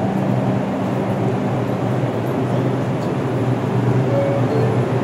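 New York City Subway train standing at the platform with its doors open, giving a steady hum with a low drone from its onboard equipment.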